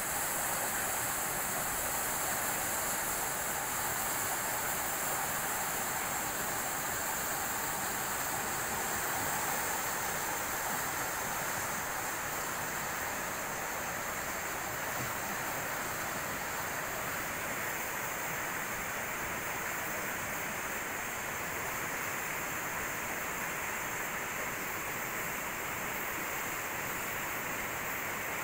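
Muddy flash-flood water rushing down a swollen river, steady and unbroken.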